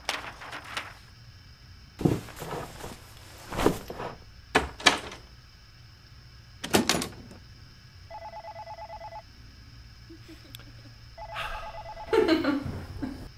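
Footsteps, paper rustling and knocks, with a door thumping shut about seven seconds in. Then a telephone rings electronically, in rings about a second long repeating every three seconds.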